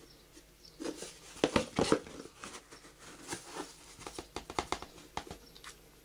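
Cardboard Daz washing-powder box handled by hand: a run of irregular rustles, scrapes and taps, the loudest cluster about a second and a half in.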